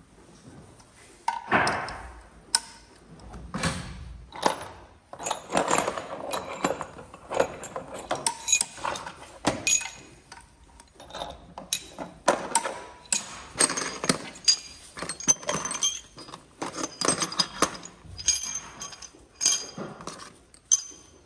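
Hand wrenches working a bolt on a BMW N46 engine's cylinder head: irregular metallic clicks, clinks and knocks of steel tools against the engine, some ringing briefly.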